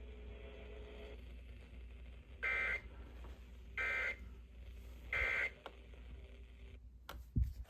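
Three short bursts of EAS digital data tones, about 1.4 seconds apart: the end-of-message code that closes the severe thunderstorm warning. A couple of clicks and a short low thump follow near the end.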